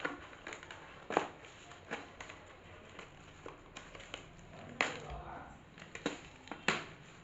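Smartwatch box and packaging being handled and opened: a scattering of sharp taps and clicks, the loudest about a second in, near five seconds and near the end.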